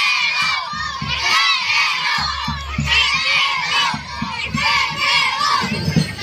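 A large crowd of children shouting and cheering together, many high voices overlapping.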